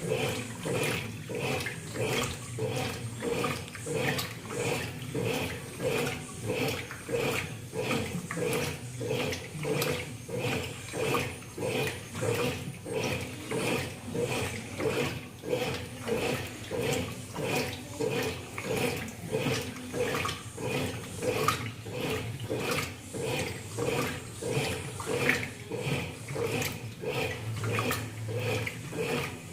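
Brastemp Ative 11 kg washing machine agitating its load in water, a rhythmic churning and sloshing that swells a little more than once a second.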